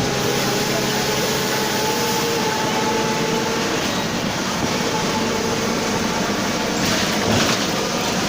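Mercedes-Benz OF 1721 city bus on the move, heard inside the cabin: steady engine and driveline noise with a growl from the driveshaft (cardan). A brief louder burst of noise comes near the end.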